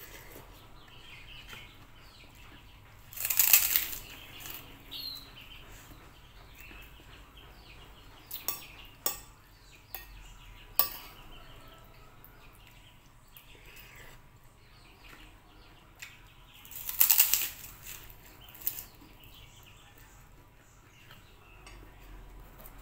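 Eating chicken soto: a metal spoon clicks against the bowl several times, and two short loud mouth noises come as spoonfuls are taken, about 3 seconds in and again past the middle.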